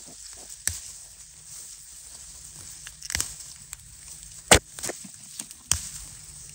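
Footsteps through a green wheat field, the stalks rustling and brushing close by, with several sharp crunches; the loudest comes about four and a half seconds in.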